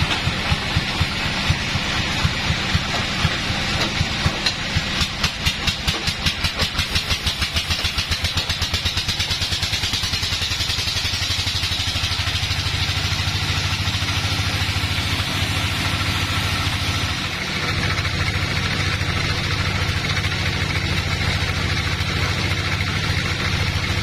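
A sawmill engine thumping slowly at first, then speeding up over the first ten seconds or so until the beats run together into a steady low drone as it comes up to working speed.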